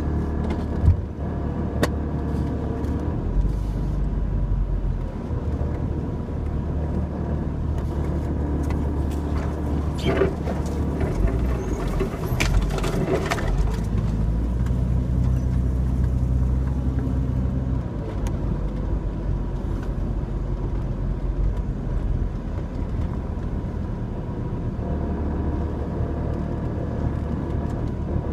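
Jeep Cherokee XJ driving: steady low engine and road rumble, with a cluster of rattles and knocks about ten to thirteen seconds in.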